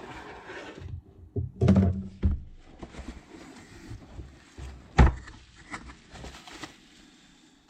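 A cardboard shipping box being cut open with scissors and handled: scratchy rustling and scraping with a few knocks, the loudest a sharp thunk about five seconds in.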